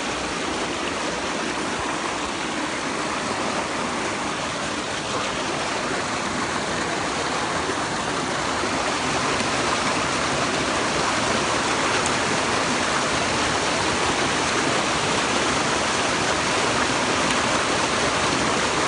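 Mountain stream rushing over rocks, a steady loud flow of water.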